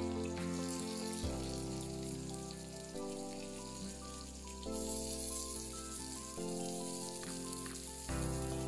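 Chopped onions sizzling as they fry in hot mustard oil in a kadai, the sizzle growing louder about five seconds in. Background music with held chords that change every second or two plays alongside.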